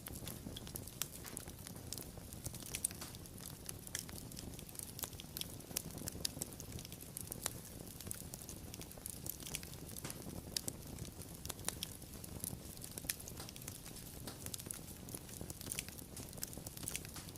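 Wood fire crackling, with irregular sharp pops and snaps over a soft low rumble of flame.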